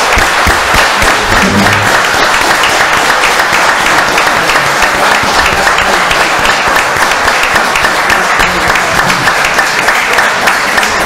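Audience applause in a hall: many hands clapping steadily without a break.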